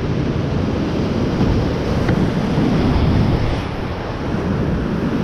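Whitewater rapids of a steep creek rushing around a kayak as it runs through them: a loud, steady wash of water, heaviest in the low end.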